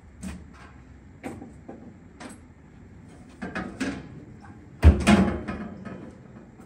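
Aluminum fuel cell being shifted around in a Jeep's rear tub: several light knocks and clacks, then a heavy thump about five seconds in as it is set down on the tub floor.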